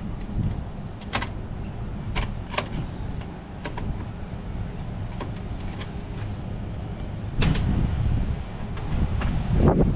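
Steady low rumble with scattered sharp clicks and knocks, a few louder ones near the end: small parts and tools being handled.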